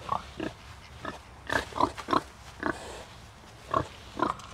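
Pigs grunting: about ten short, separate grunts spread across a few seconds.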